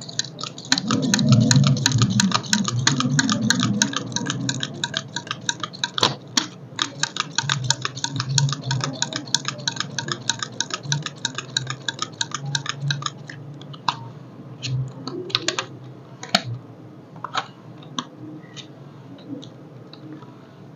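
Enamelled copper wire being hand-wound into an angle grinder armature's slots, pulled over the paper slot insulation: a fast, even run of dry ticks and rasps. It thins to scattered clicks about two-thirds of the way in.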